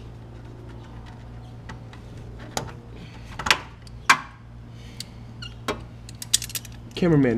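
A few sharp metal clicks and taps from a hand tool working a hose clamp onto a car's lower radiator hose, the last several coming in a quick cluster near the end, over a steady low hum.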